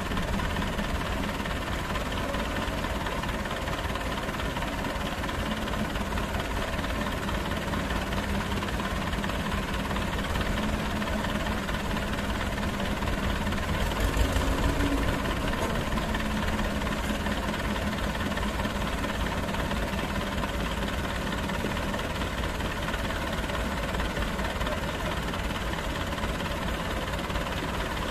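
Diesel tractor engines running steadily, the Escort 335 pushing under load against the other tractor's front tyre, with a brief louder surge about halfway through.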